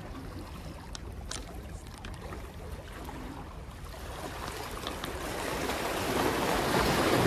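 Steady wash of sea water and wind at the water's edge, swelling louder over the last two seconds, with a few faint ticks about a second in.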